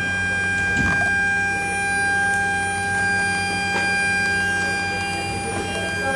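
Steady high-pitched whine with evenly spaced overtones over a low hum, from running machinery inside the Antonov An-225's cargo hold, with a few light knocks about one and four seconds in.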